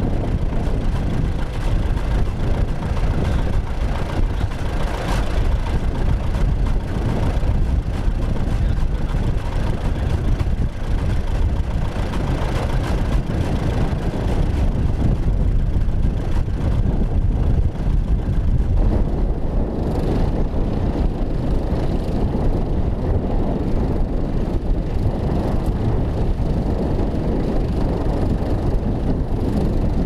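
Vintage tractor engines running steadily under load while pulling mounted ploughs through the soil.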